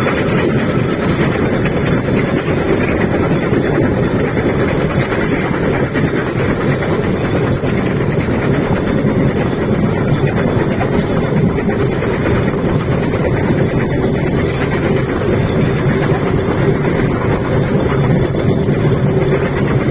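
Bamboo train (norry) running along the rails: a steady, loud drone of its small engine mixed with the rumble and rattle of the wheels on the track, unbroken throughout.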